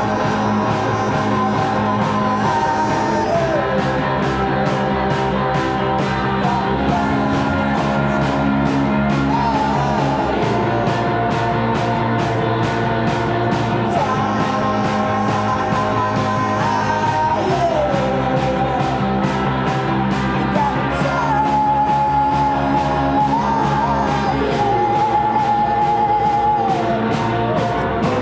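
Live rock band playing: sung vocals over electric bass, electric guitar and drums, with evenly spaced cymbal hits keeping the beat.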